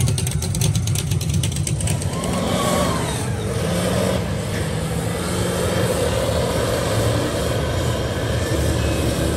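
Mud truck engines running loud and hard. A close engine pulses rapidly for the first couple of seconds, then a lifted pickup's engine runs hard with its revs rising and falling as it churns through deep mud.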